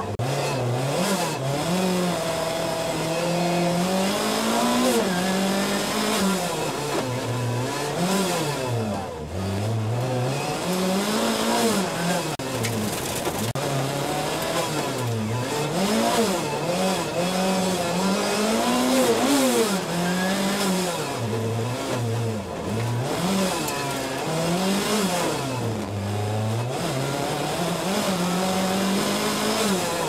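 Rally car engine heard from inside the cockpit, running hard. The revs climb and drop again every second or two as the car is driven flat out through a twisty stage.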